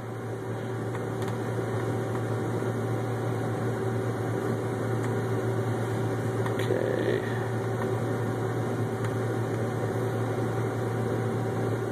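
Steady drone of a John Deere 9670 STS combine heard from inside its cab: engine and threshing machinery running, a low hum with a couple of steady higher tones, building slightly over the first couple of seconds.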